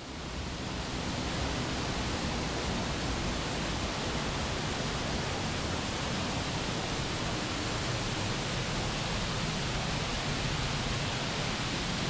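Waterfall rushing: a steady, even sound of falling water, fading in over about the first second.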